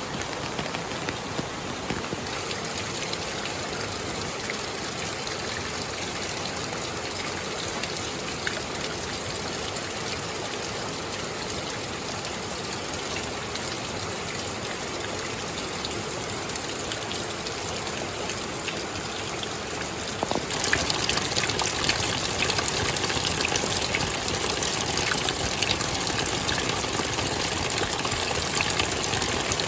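Steady rain with rushing water: a continuous even hiss of drops and flow, which turns suddenly louder and brighter about two-thirds of the way through.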